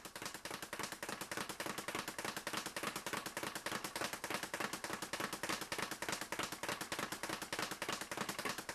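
Speed bag being punched in the simple-punch rhythm, one strike followed by three bounces off the wooden rebound board, making a fast, even rattle of knocks.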